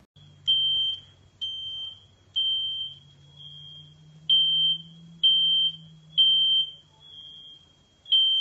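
Smoke alarm sounding: a high beep repeating about once a second, some beeps louder than others.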